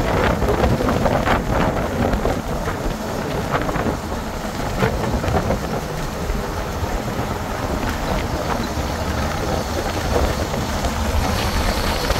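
Steady road and wind noise of a vehicle travelling at speed, with a deep rumble and a few short knocks.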